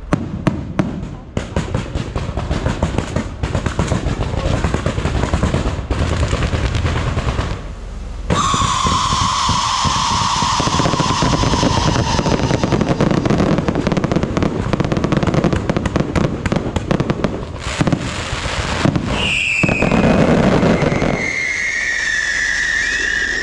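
Aerial fireworks bursting overhead in dense rapid crackles and pops. About eight seconds in, a long whistle slowly falls in pitch. Near the end come more whistles from whistling shells.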